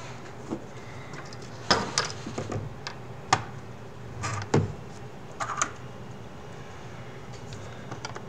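Hard plastic parts being handled and knocked against each other and the tabletop: a scatter of sharp clicks and taps, bunched in the first half or so, then only faint handling.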